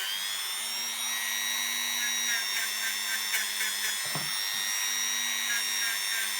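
Small high-speed rotary tool running with a steady high whine, dipping in pitch at the start as it is pressed onto the work, likely polishing a model locomotive's metal wheel rims. Faint ticking repeats about four times a second in the middle, with a brief knock about four seconds in.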